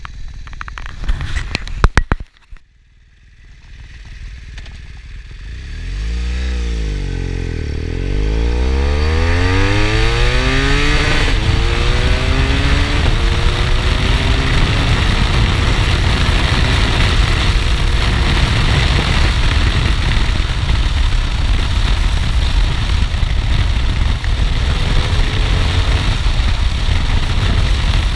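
BMW R1200R boxer twin with an Akrapovič titanium exhaust accelerating hard from a standstill through several gears. The pitch climbs and drops back at each upshift. From about eight seconds in, a steady loud rush of wind at high speed covers most of the engine. A few loud clattering knocks come in the first two seconds.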